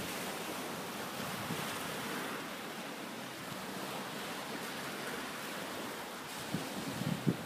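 Small waves washing onto a shingle beach, with wind noise on the microphone. A few low gusts buffet the microphone near the end.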